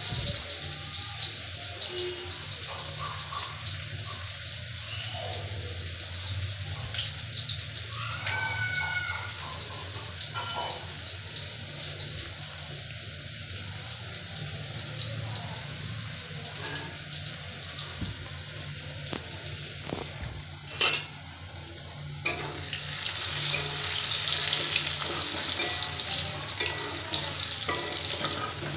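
Onions frying in hot oil in a steel kadhai, a steady sizzle. A spatula knocks against the pan twice a little after twenty seconds in, and the sizzle grows louder as the onions are stirred.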